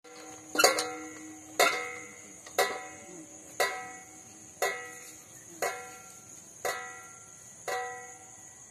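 Outdoor gym machine working with nobody on it, its swinging metal arms clanking eight times at a steady beat of about once a second, each clank ringing and fading. Crickets chirr steadily behind.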